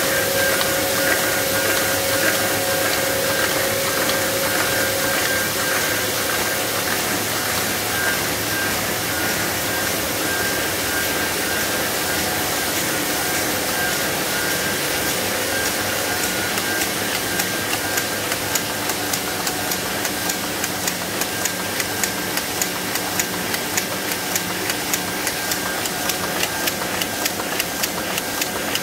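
Five-colour Heidelberg GTO sheet-fed offset press running: a steady mechanical hum and hiss with a few held tones. From about halfway on, a regular clicking joins in, about three clicks a second.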